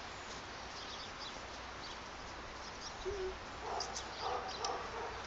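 A dog gives a few short whines and yips about three to four and a half seconds in, over a faint steady outdoor hiss.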